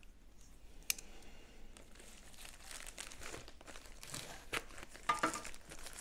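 A white mailing envelope being cut open with a folding multitool and then torn open by hand: a sharp click about a second in, then crinkling and tearing of the envelope material, busiest near the end.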